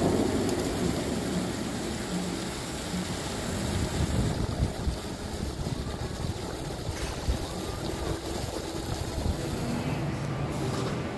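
Wind buffeting the microphone, an uneven low rumble over a steady outdoor noise.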